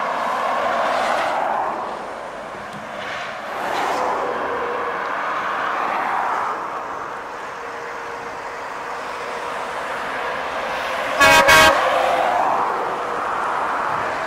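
Heavy trucks passing below on a highway, a rush of engine and tyre noise swelling and fading several times. About eleven seconds in, a truck horn gives two short blasts, the loudest sound.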